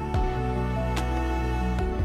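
Background music: a slow, soft instrumental track with held notes and a bass line changing about once a second.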